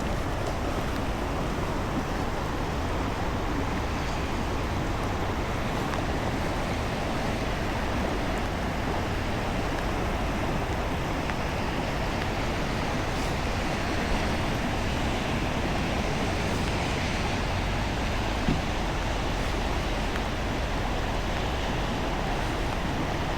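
Steady rushing of flowing river water, an even hiss.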